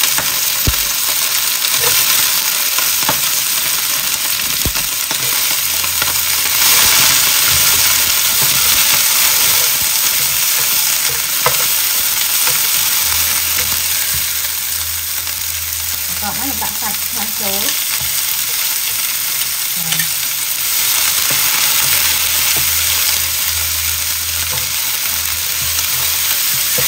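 Stir-fry sizzling in hot oil in a nonstick frying pan, turned with a nylon spatula that now and then taps and scrapes against the pan.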